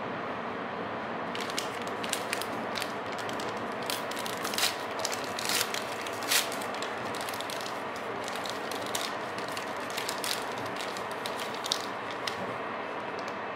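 Plastic film wrapper of a packaged cream bun crinkling and crackling as it is pulled open by hand. The crackles start about a second in and stop near the end, and they are loudest in the middle. Under them runs the steady rumble of the moving train.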